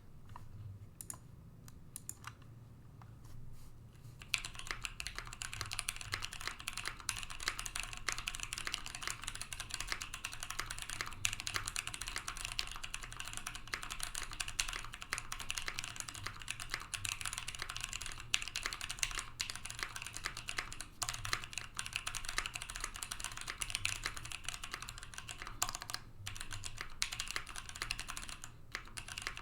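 Volcano660 mechanical keyboard typed on, its Cream/T1 frankenswitches with 52 g springs clacking under PBT keycaps, with lubed and clipped Cherry stabilizers. A few scattered keystrokes come first, then fast, steady typing from about four seconds in.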